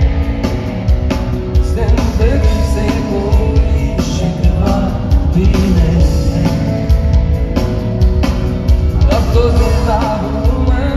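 Live band performance: a male vocalist singing over a drum kit and electric guitar, with a heavy, booming low end and regular drum hits.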